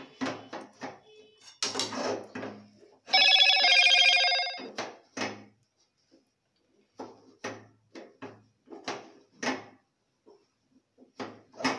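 A wooden spatula pressing and stirring stiff rice-flour dough in a steel pan, a run of short knocks and scrapes. About three seconds in, a loud electronic ring sounds for under two seconds, shifting pitch halfway through.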